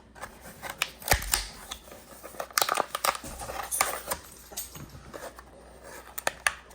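Retail packaging being opened by hand: irregular crinkling and rustling with scattered sharp clicks and snaps, and a dull thump about a second in.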